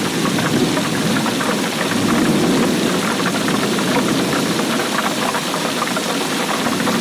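Steady heavy rain: a dense, even patter of drops over a low rumble.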